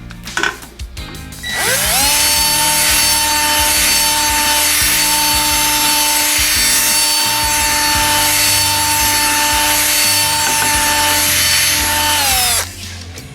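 Chainsaw revving up about a second and a half in, then running at a steady high pitch while cutting through wood for about eleven seconds, and winding down near the end.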